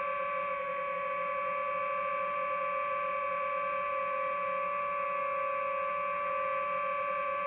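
DJI FPV drone's motors and propellers whining steadily at a near hover, one unchanging pitched hum.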